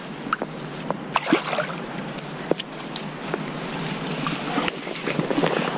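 Water sloshing and dripping as a landing net holding a small carp is lifted out of the river, with scattered sharp drops and small splashes.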